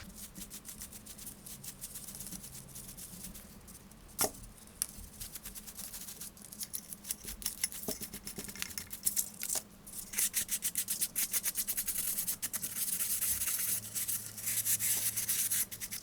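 A circuit board being scrubbed clean in rapid back-and-forth strokes, several a second, growing busier in the second half, with a few sharp knocks in between.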